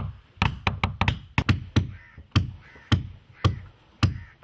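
Wooden mallet knocking repeatedly on a wooden tool to hammer a sewn boat's coconut-fibre lashings tight against the plank hull. About two sharp strikes a second, in an uneven rhythm.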